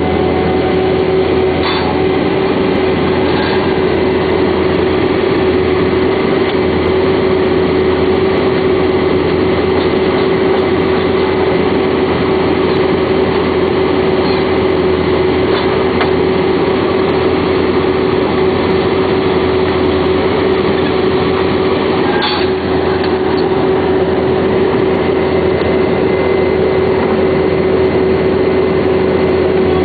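Vermeer D24X40 Series 2 horizontal directional drill running steadily, its diesel engine and machinery making a continuous loud noise with a steady whine over it. Two brief clicks sound, one about two seconds in and one a little past twenty seconds.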